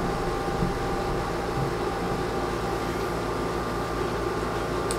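Steady machine hum with a hiss, holding several constant tones that do not change.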